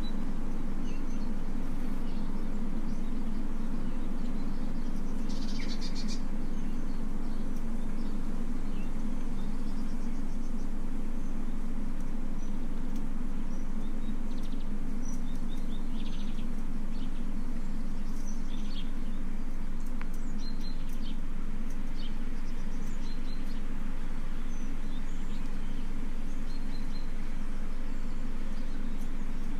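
Birds chirping now and then over a steady low hum.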